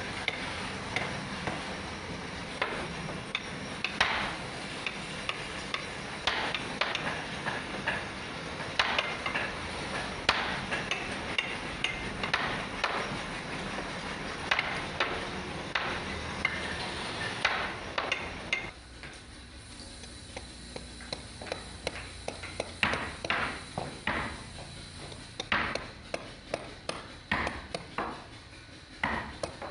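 Wooden mallet tapping a wood-carving chisel into a hardwood panel: irregular knocks, several a second. About two-thirds through the background noise drops away and the taps go on as crisper, more separate knocks.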